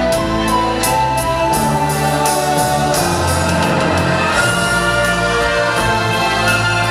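Orchestral show music with singing, played during a live stage performance.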